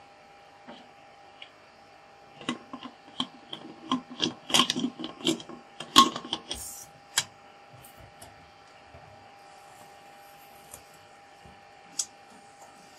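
Aluminium pressure cooker lid being set on the pot and twisted shut: a quick run of metal clatters, scrapes and knocks, the loudest about six seconds in, then one more click near the end.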